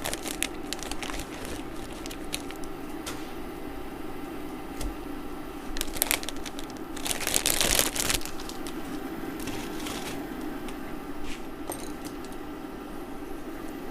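Plastic instant-noodle packet crinkling and rustling as the noodles are put into a pot of boiling water, with louder rustles about six seconds in and again around seven to eight seconds, over a steady low hum.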